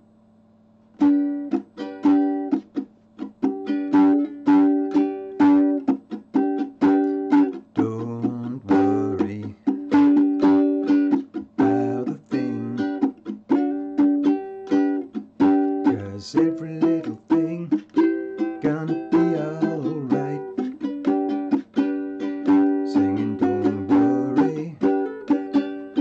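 Ukulele strummed in a steady rhythm, chords in the key of G. The strumming starts about a second in.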